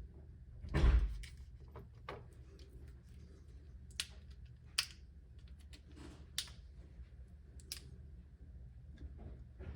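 Handling of the small parts of an electronic safe lock's battery compartment: a dull thump about a second in, then several separate sharp clicks.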